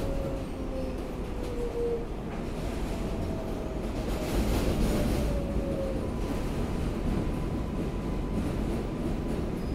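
Inside an R188 subway car of the 7 train running on the track: a steady rumble of wheels on rail, with a faint tone that falls in pitch twice during the first half.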